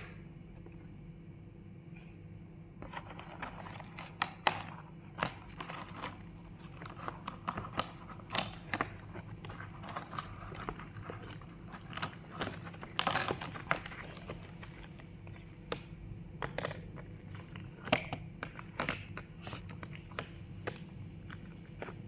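Homemade glue slime being squeezed and stretched by hand, making irregular sticky clicks and small crackling pops.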